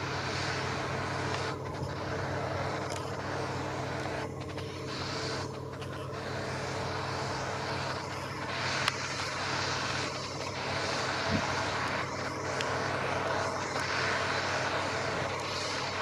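Case International 1660 Axial-Flow combine harvester working through standing barley: its diesel engine and threshing machinery give a steady drone.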